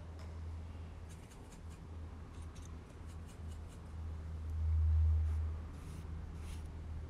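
Light paintbrush strokes scratching on watercolour paper, in two short runs, over a steady low hum that swells briefly about five seconds in.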